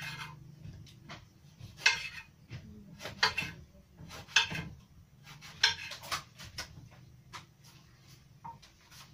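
Kitchen knife chopping a vegetable on a hard stone countertop: about five sharp knocks, roughly one every second and a quarter, with lighter taps and scrapes between them.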